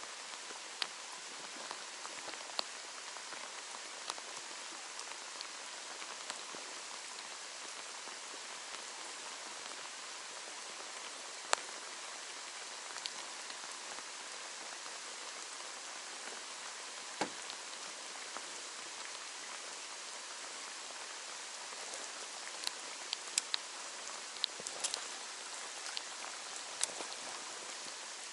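Steady rain falling, an even hiss with scattered sharp ticks of single drops landing close by, the ticks coming more thickly a little past the middle.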